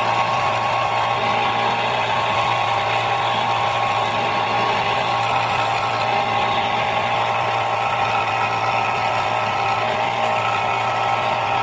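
Electric jigsaw running steadily, a constant motor whine at an even level.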